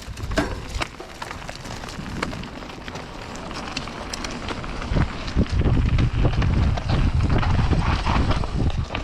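Mountain bike riding down a dirt trail: tyres and frame rattling and knocking over rough ground in quick, uneven clicks, with a heavy low rumble of wind and trail noise coming in about five seconds in as speed picks up.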